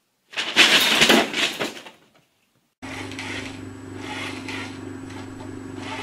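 Paper bag crackling and rustling loudly for about two seconds as a cat tangles with it. After a short gap a steady low hum with hiss starts and keeps on.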